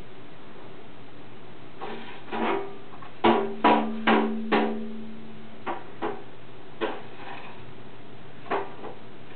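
A baby banging a percussion toy: about ten irregular knocks, a quick run of four in the middle, some of them ringing briefly with a low tone.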